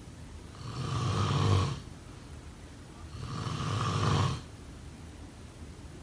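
A person snoring: two long snores about two and a half seconds apart, each growing louder and then cutting off.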